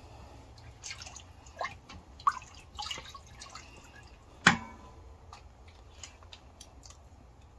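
Light clinks and taps of a spoon against the pot, with small liquid drips and one sharper ringing tap about four and a half seconds in, over a low steady hum.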